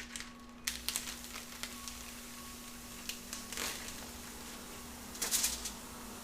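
Kitchen work sounds: a few knocks and clatters over a steady hiss that comes in just under a second in, with a cluster of louder clatter about five seconds in.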